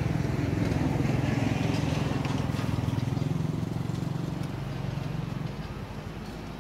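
A motor vehicle's engine running as it passes, a steady low hum that fades away over the last second or so.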